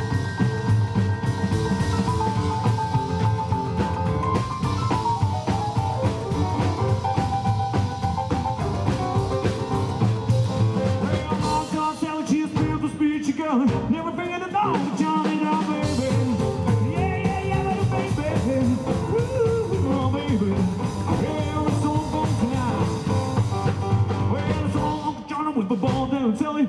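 Live rock and roll band of piano, double bass and drums playing. The low bass drops out for a couple of seconds about halfway through.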